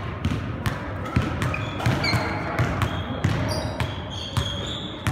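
A basketball being dribbled on a hardwood gym floor, thumping about two to three times a second, with sneakers squeaking now and then.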